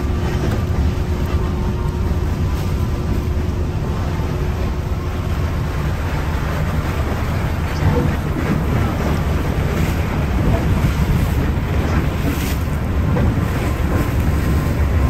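Steady low rumble of an icebreaking sightseeing ship under way through drift ice: engine running and hull pushing through broken floes, with wind on the microphone.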